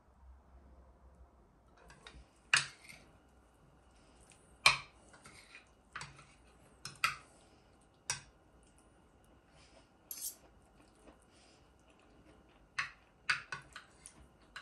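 Metal cutlery clinking against dishes: about a dozen sharp, irregular clinks with pauses between them, several in quick succession near the end.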